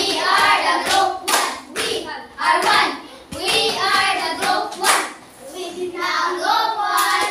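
A group of children singing together, with handclaps throughout.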